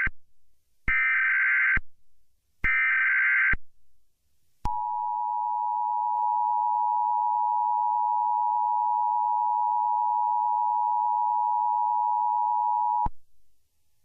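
Emergency Alert System SAME header: short bursts of rapidly shifting data tones, with the end of one at the start and two more in the first four seconds. Then comes the EAS two-tone attention signal, a steady tone held for about eight seconds that cuts off abruptly.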